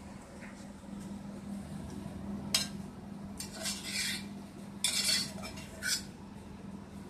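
Spoon clinking and scraping in a metal dog bowl as an Old English Sheepdog eats from it: one sharp clink about two and a half seconds in, then a few short scrapes.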